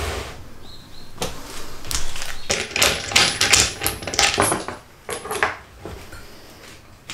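Wooden knocks, taps and clatter as the plywood table-saw lathe jig is handled and lifted on the saw table: a quick, irregular run of sharp clicks.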